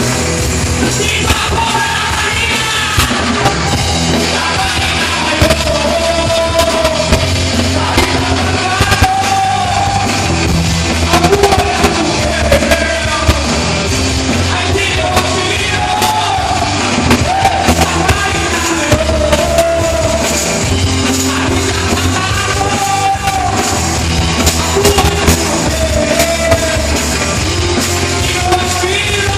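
Rock band playing live with a lead singer: sung phrases over a dense, steady backing with frequent sharp drum hits.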